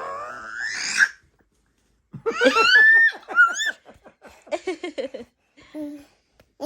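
A baby boy lets out a squeal that rises in pitch, then after a short pause breaks into a quick run of excited, giggling laughter, followed by a few short vocal sounds.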